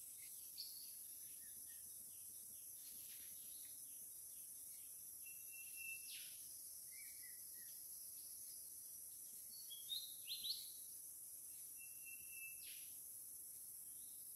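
Faint, steady high-pitched insect buzz with scattered bird calls over it. Twice, a short held whistle ends in a quick falling note, and a cluster of quick chirps about two-thirds of the way through is the loudest moment.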